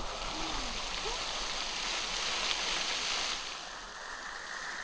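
Steady rush of a spring-fed waterfall and its creek pouring into a pool, with a faint voice briefly just after the start.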